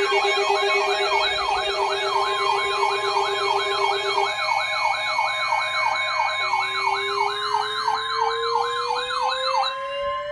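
Electronic siren yelping, its pitch sweeping up and down about three times a second over steady held tones. Near the end the yelp stops, and a lower siren tone that began partway through goes on rising steadily.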